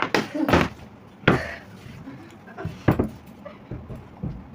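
Several hard knocks and thuds a second or more apart: a plastic bottle being flipped and landing on the floor.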